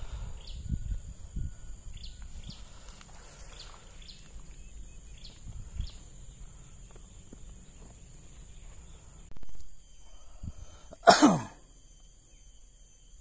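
Outdoor swamp-pond ambience: a steady high-pitched insect drone, scattered short chirps and a low wind rumble. About eleven seconds in, a loud, short sound drops sharply in pitch.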